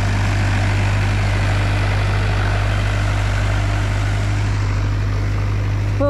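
Tractor's diesel engine running steadily, a low even drone, as it ploughs a wet rice paddy.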